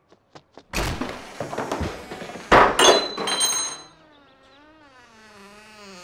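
Wooden front door being unlatched and thrown open: a few small clicks, then heavy thuds and knocks, the loudest about two and a half seconds in with a metallic jingle. Then a long wavering hinge creak, slowly falling in pitch, as the door swings back.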